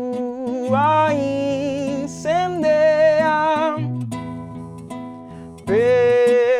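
A singer's long sung notes over acoustic guitar chords. Each phrase slides up in pitch as it starts, and there are four phrases.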